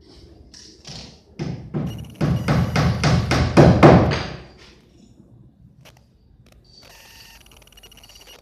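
A quick run of about five knocks or strokes a second, growing louder for a few seconds and then stopping, followed by a quieter scratchy noise near the end.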